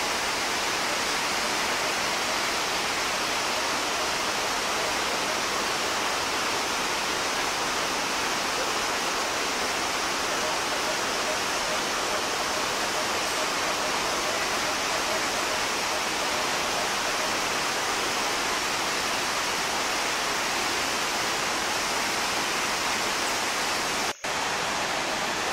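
Heavy water of the Iguazu Falls cascades falling and churning: a steady, even rushing noise, cut off for an instant near the end.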